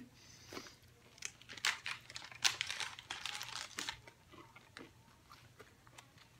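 Plastic snack bag crinkling as it is handled: a quiet run of irregular rustles and crackles that dies down near the end.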